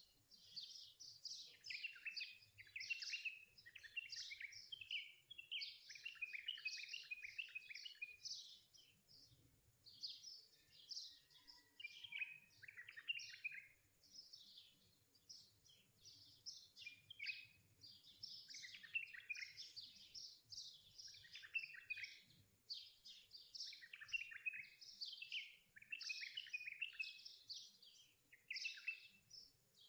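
Small birds chirping and singing continuously, many short high chirps overlapping.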